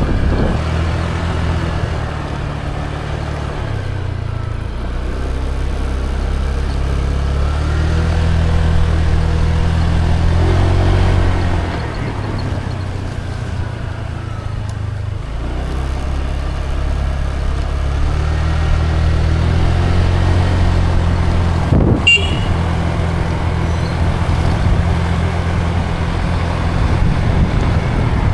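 Small motor scooter engine running while riding, its note rising and falling with the throttle, easing off about halfway through and building again, with wind on the microphone.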